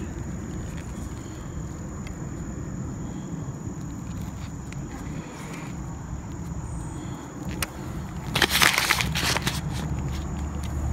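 Low rumble of wind and handling noise on the microphone while a practice net's frame poles and mesh are handled. There is a click about seven and a half seconds in and a short burst of rustling and scraping about a second later.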